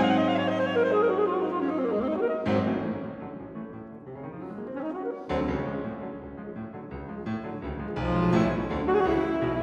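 Alto saxophone and grand piano playing a classical sonata. The piano strikes a loud chord at the start that rings away, then plays sweeping runs a little over two seconds in and again about five seconds in. The playing grows fuller and louder near the end.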